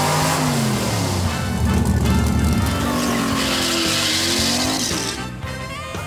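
Muscle-car V8 engines revving, their pitch rising and falling, with a spell of tyre squeal in the middle, fading near the end under background music.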